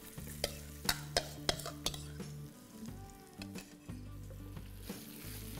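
Mashed boiled potato landing in a steel pan of hot oil tempering, which sizzles as a wooden spatula stirs and scrapes it in. A run of sharp taps of the spatula against the pan in the first two seconds.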